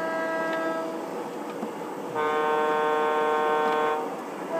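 Electronic horn of an MTH Premier O scale model diesel locomotive, played through its built-in sound system. One horn blast fades out about a second in, and a second, louder and lower multi-note blast sounds from about halfway through to near the end, lasting about two seconds.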